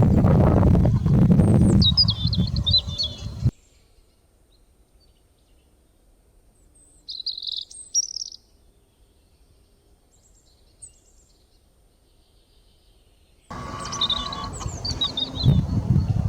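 Small birds chirping in short, high-pitched phrases over a low background rumble. About three and a half seconds in, the sound cuts off suddenly to near silence, broken only by a couple of faint chirps. Near the end the chirping and rumble come back just as suddenly.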